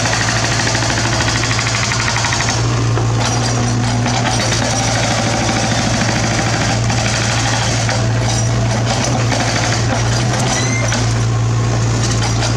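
Mini excavator's diesel engine running steadily with a constant low drone and a fast, even clatter over it.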